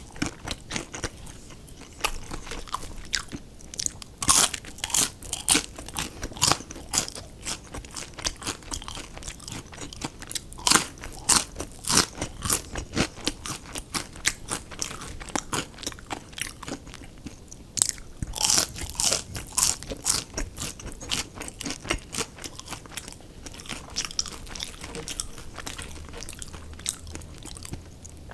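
Close-up biting and chewing of crispy fried fast food: a continuous run of crunches, dense and many to the second.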